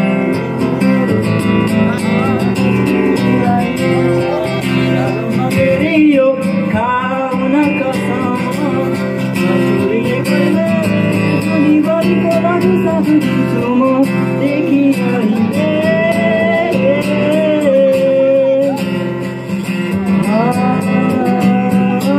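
Acoustic guitar strummed steadily, with a young man's voice singing a melody over it into a microphone.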